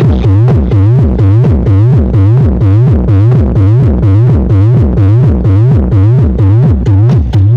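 Loud electronic dance music played through a 15-inch subscoop bass speaker cabinet, with a heavy bass line and a short rising synth sweep that repeats about three times a second.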